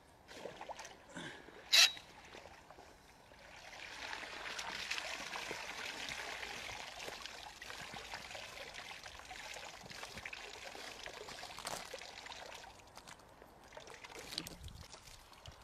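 Pond water splashing and trickling as a long-handled dip net is swept through shallow water and lifted out, with one sharp click about two seconds in.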